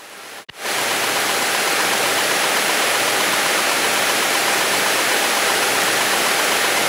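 Steady engine and airflow noise inside a light airplane's cabin in cruise, an even rushing drone with a faint high whine, cutting in abruptly about half a second in.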